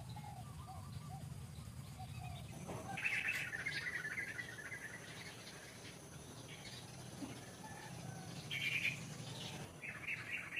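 Birds chirping in short bursts, the loudest about three seconds in and again near the end, over a steady low hum.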